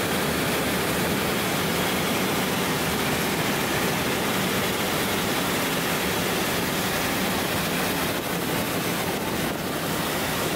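Steady rushing noise of wind and engine aboard a Coyote II aircraft on its landing approach to a grass strip, with no clear engine note standing out.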